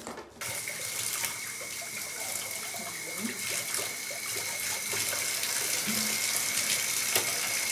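Water running from a handheld shower head into a bathtub: a steady hiss that starts suddenly about half a second in, with a faint steady high whistle over it.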